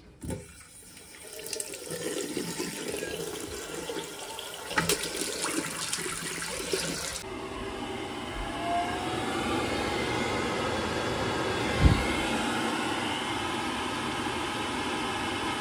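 A basin hot tap is turned on and water runs into the sink. Then comes a steady rushing noise as the Worcester Greenstar 28 Junior combi boiler fires to heat the hot water, with one sharp click about twelve seconds in.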